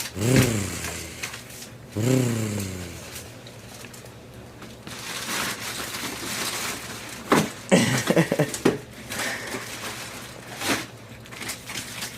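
Two drawn-out wordless vocal sounds in the first three seconds, then soft rustling and a cluster of small handling knocks about seven to nine seconds in.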